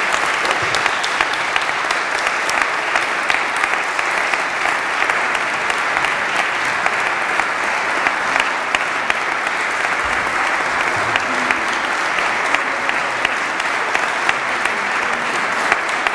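Audience applauding steadily: a dense patter of many hands clapping, holding at an even level throughout.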